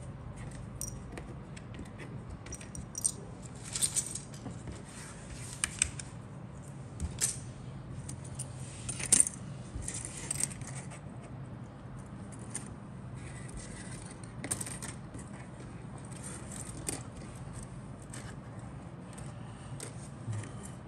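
Grey plastic model-kit sprues and parts clicking and clattering as they are handled and set down on a cutting mat: scattered light knocks, the loudest about nine seconds in, over a steady low hum.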